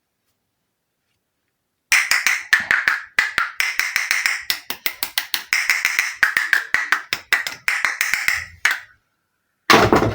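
Quick, irregular clicking and tapping of small plastic toy pieces being handled, several sharp clicks a second, beginning about two seconds in and stopping shortly before the end, with one louder clack near the very end.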